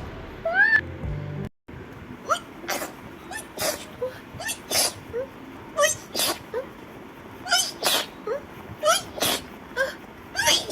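A girl sneezing rapidly, one sneeze after another, each a short rising gasp followed by a sharp sneeze, with a brief break about a second and a half in.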